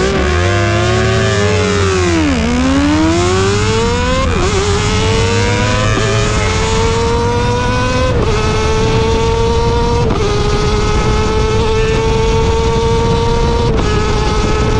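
High-revving Kawasaki ZX25R inline-four, bored up to 300cc, heard from on the bike as it launches and accelerates hard through the gears. A high-pitched rev drops sharply as it pulls away, then the pitch climbs steadily with a brief dip at each of about five quick upshifts, over wind rush.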